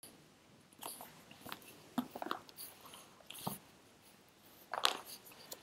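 Faint, scattered clicks and rustles of handling, with a louder one near the end.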